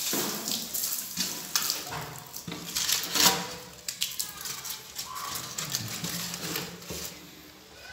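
Irregular knocks, clicks and scrapes, with short bits of voices in the background.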